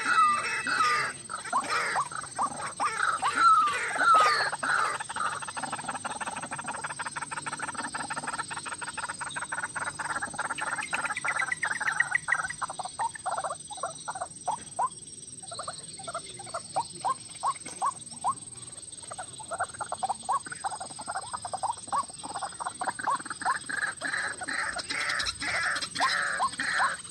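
White-breasted waterhen calling: long runs of short repeated notes that speed into a fast stutter, break off briefly about halfway, then start up again.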